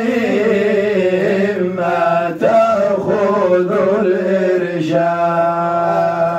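A man chanting Sufi devotional verse ('atabiyat) in long, wavering held notes drawn out between the words of the line.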